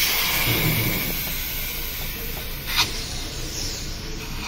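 Leak-test pressure hissing out of a car AC system through the manifold gauge set's hoses, dying down over the first couple of seconds; a sharp click about three seconds in.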